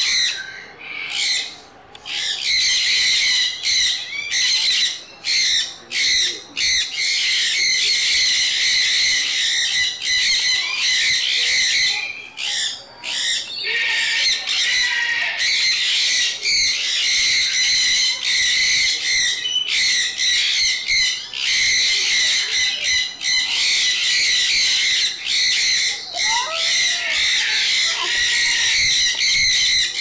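A flock of sun conures screeching: shrill, harsh calls that overlap almost without a break, with a brief lull about a second in.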